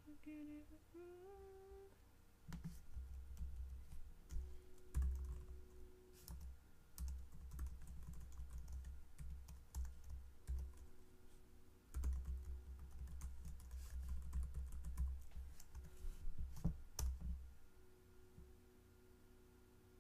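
Typing on a computer keyboard: runs of key clicks with dull low thumps under them, from about two seconds in until near the end. A person hums a few rising notes at the start.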